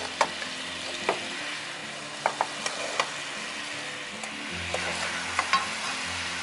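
Sugary braising sauce bubbling and sizzling in a nonstick frying pan as it reduces to a foam, stirred with a wooden spatula that scrapes the pan and gives a few sharp taps, several close together a couple of seconds in and two more near the end.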